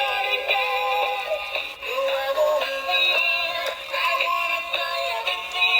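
Dancing bee toy playing its electronic song with a synthetic singing voice through its small built-in speaker, thin with no bass.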